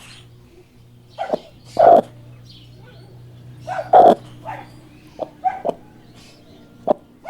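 A series of short animal calls at irregular intervals, with two louder ones about two and four seconds in.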